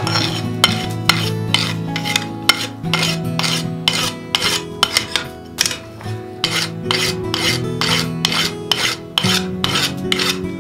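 A flat file rasping over a glowing wrought iron bar on the anvil in quick, uneven strokes, about three a second, over background music with held notes.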